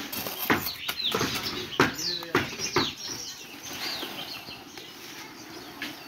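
Several sharp knocks and scrapes in the first half as wet concrete is worked in wooden formwork with a steel rod, then quieter shuffling noise.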